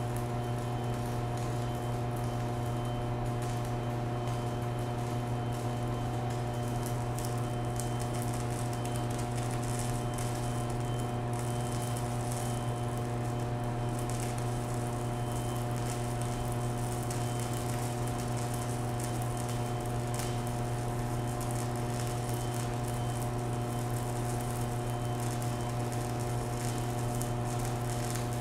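Stick (MMA) welding arc from a VEVOR 140A inverter welder at 60 amps, crackling and sizzling steadily as the rod burns on steel, over a steady low hum.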